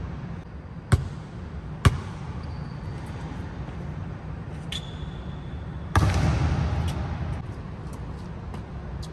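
A basketball bouncing on the hardwood court of a large, empty arena: two sharp bounces about a second apart, then a louder impact about six seconds in that echoes through the hall for more than a second. A steady low rumble runs underneath.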